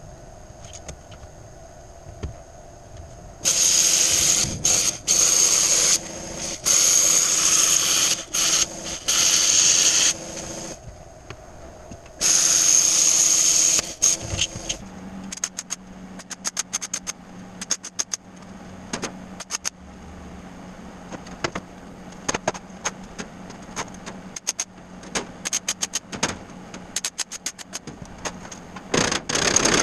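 A power tool running in long bursts on stainless steel sheet, cutting it along a straightedge, for about seven seconds and then again briefly. After that comes a steady low hum with many sharp crackles and clicks scattered through.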